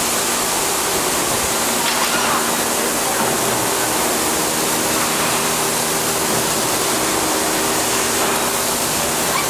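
Electric welding arc hissing steadily, with an even machine hum underneath.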